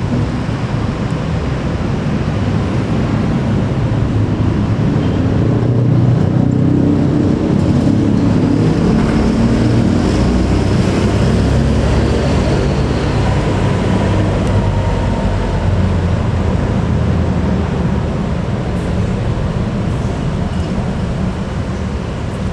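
Bus engine running close by, a low rumble that swells a few seconds in and then eases off.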